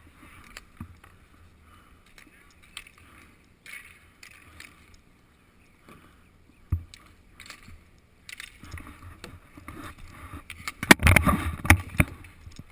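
Roller hockey on a concrete rink: inline skate wheels rolling and scraping, with scattered stick and puck clicks and a single sharp knock partway through. A dense burst of loud knocks and clatter comes near the end.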